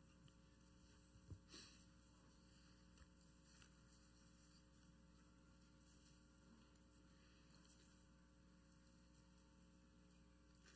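Near silence: a faint steady electrical mains hum, with a faint tap about a second in.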